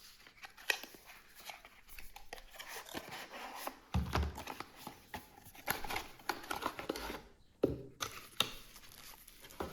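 A small cardboard product box being opened and unpacked by hand: packaging rustles and crinkles, with scattered light clicks and knocks and a couple of low thuds.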